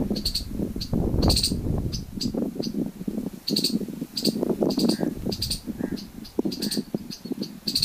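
Wind gusting across the microphone in an uneven rumble, with a small bird chirping over it in short, high notes repeated many times.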